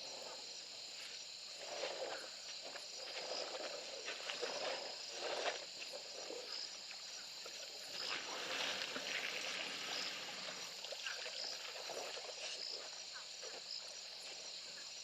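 Steady high chirring of crickets and other insects, with irregular soft rustling and scuffing sounds coming and going over it.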